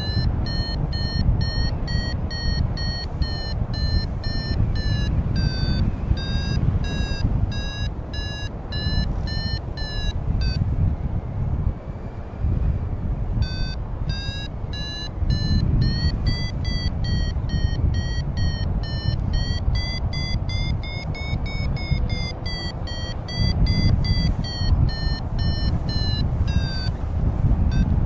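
Flight variometer beeping in quick pulses, about two to three a second, its pitch drifting up and down; the beeps stop for about three seconds near the middle. Fast beeping like this signals climbing air. Strong wind rush on the microphone underneath.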